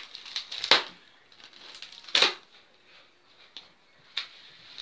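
Parcel packaging being handled, with a few short, sharp crinkling rustles; the two loudest come about a second and a half apart.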